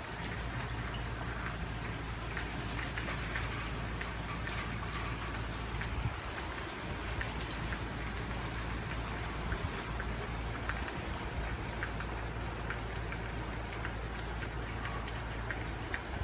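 Rain falling steadily, with many individual drops pattering on a surface, over a low steady rumble.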